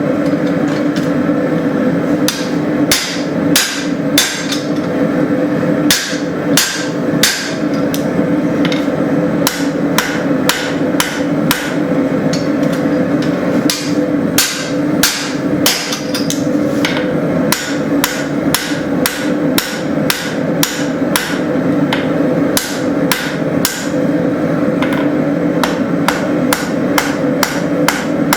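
Hand hammer striking hot leaf-spring steel on an anvil in runs of blows, a few a second, as the bar is forged and drawn out. A steady drone from the running forge is heard underneath.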